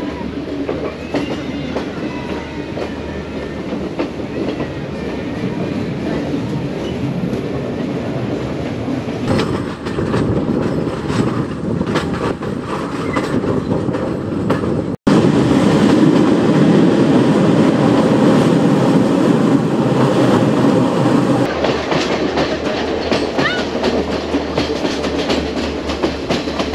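Passenger train running along the track, heard from an open carriage window: wheels clicking over the rail joints above a steady rumble. The sound changes abruptly a few times where the recording is cut.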